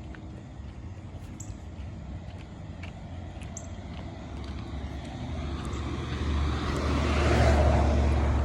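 A road vehicle passing close by: its tyre and engine noise swells from about five seconds in to its loudest near the end.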